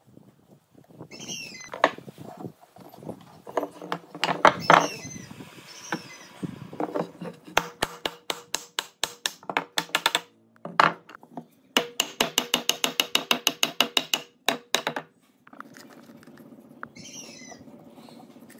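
Rapid wood-on-wood knocking as a hardwood block taps a glued pine mortise-and-tenon joint home. The knocking comes first as a slower run, then as a fast, even run of about eight knocks a second that stops suddenly, with scattered knocks and scraping of wood being handled before it.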